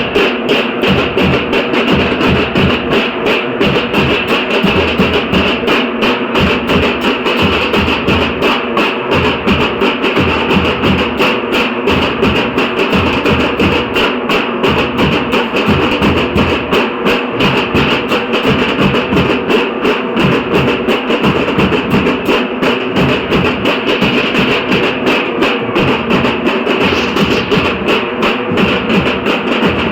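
Dhol-tasha drum ensemble playing without a break: deep dhol strokes under the sharp, rapid crack of tasha drums.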